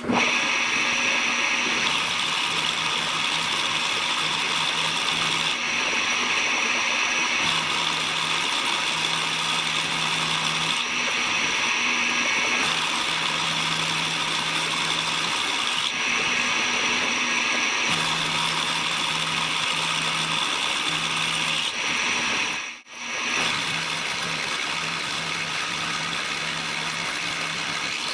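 Milling machine running, its end mill cutting a clamped metal bar. A steady machining noise that drops out for a moment about 23 seconds in.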